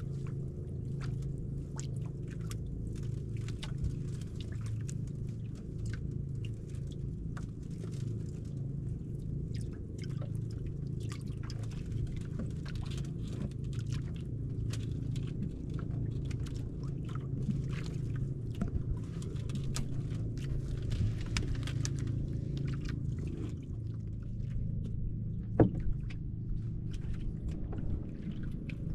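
A boat engine running steadily with a low hum. Light clicks and water sounds are scattered over it, and a sharper knock comes about three-quarters of the way through.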